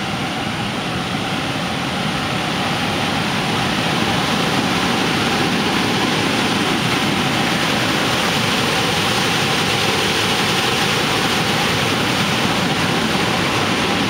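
Waterfall rushing through a rocky gorge: a steady, dense noise of falling white water, a little louder from about four seconds in.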